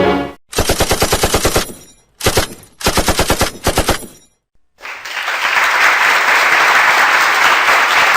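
Machine-gun sound effect: a burst of rapid shots, a few single shots, then a second rapid burst. About a second later a steady rushing noise starts and runs on.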